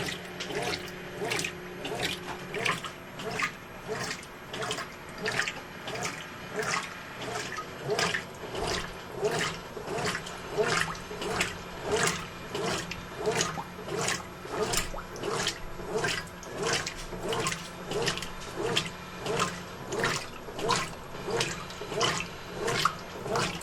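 Brastemp 12 kg washing machine agitating a load of towels in medium-level water: rhythmic swishing and sloshing, about one and a half strokes a second, over a steady motor hum.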